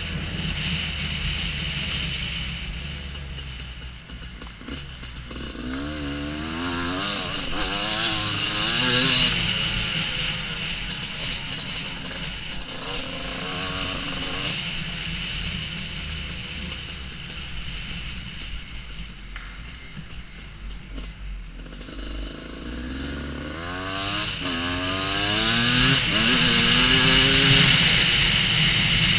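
Two-stroke enduro dirt bike engine, a Husqvarna WR250, running and being revved. Its pitch climbs and drops through the gears in two spells of acceleration, about six seconds in and again near the end.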